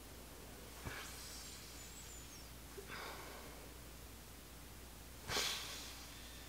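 Three short sniffs through the nose at a makeup sponge held against the face, about two seconds apart; the last is the loudest.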